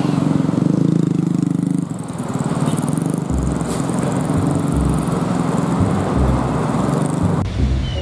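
Busy road traffic: engines of passing motorbikes and trucks, with a loud engine rumble for the first two seconds, then a steadier traffic noise. The sound changes abruptly near the end.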